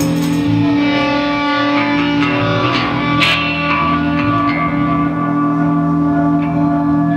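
Live punk rock band: electric guitar and bass guitar holding a sustained, ringing chord, with a cymbal crash at the start and another about three seconds in.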